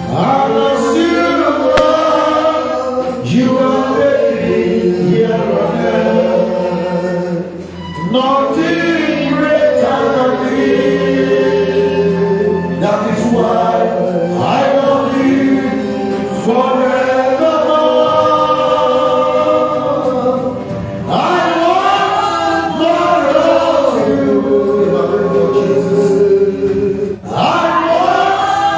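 Gospel choir singing worship music with a lead male voice, in phrases of held notes with short breaks between them.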